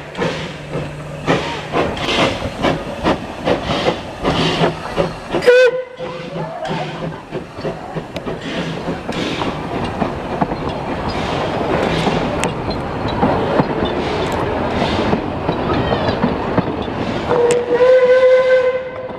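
Puffing Billy narrow-gauge steam locomotive pulling away: sharp exhaust beats, about two or three a second, for the first five seconds or so, then a short whistle toot. The carriages follow, rolling past with a steady clatter of wheels on rail, and a longer whistle blast sounds near the end.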